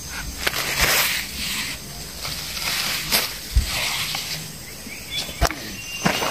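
Rustling of watermelon leaves and footsteps in dry soil as a person moves among the plants picking flowers, coming in repeated short swells, with a few sharp clicks.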